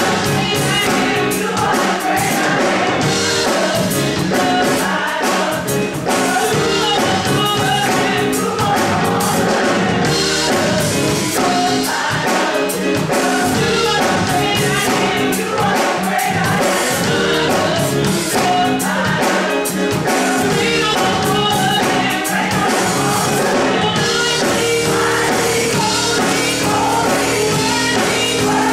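Gospel choir singing a song with a woman singing lead on a microphone, over instrumental backing with a steady beat.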